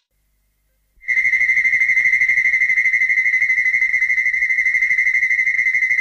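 Showa-era King Ghidorah sound effect: a high, steady electronic tone that pulses rapidly, starting about a second in after a moment of silence.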